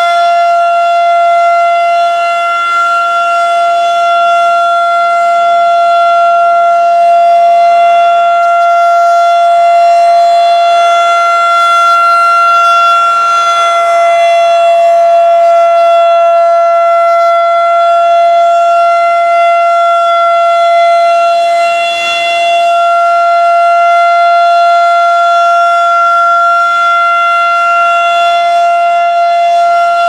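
Federal Signal 2001-130 electromechanical rotating siren sounding a steady single-tone alert at full speed during a test. The pitch holds level throughout while the loudness swells and fades a little as the horn turns.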